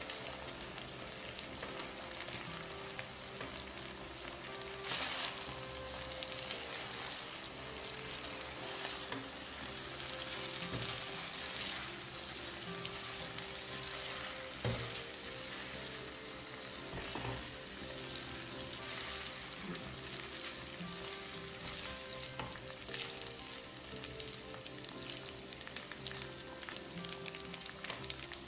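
Spaghetti and shrimp sizzling in butter-garlic sauce in a nonstick frying pan while being tossed with tongs, with occasional clicks and scrapes of the tongs against the pan.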